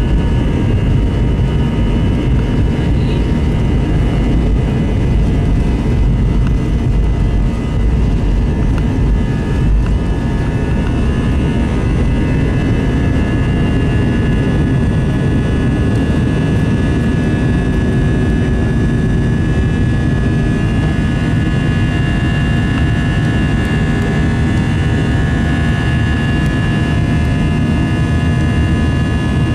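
Airbus A321 jet engines at takeoff thrust, heard from inside the cabin over the wing: a loud, steady rumble with a high whine from the engines. The whine grows stronger in the second half as the plane goes from the takeoff roll into the climb after liftoff.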